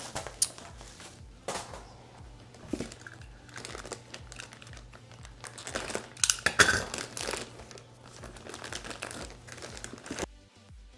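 Thin clear plastic bag crinkling and rustling as it is handled, slit open with a utility knife and pulled off a boxed mouse. The loudest crinkling comes about six to seven seconds in.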